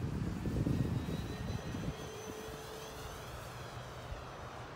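Wind buffets the microphone with a low rumble for the first two seconds. Then comes the faint whine of an E-flite Air Tractor 1.5m RC plane's brushless electric motor and propeller, its pitch shifting as the plane flies past.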